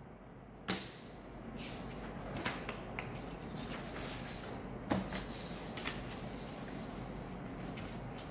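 A few light knocks and clicks over faint room noise: two sharper knocks, one about a second in and one about five seconds in, with softer ticks between them.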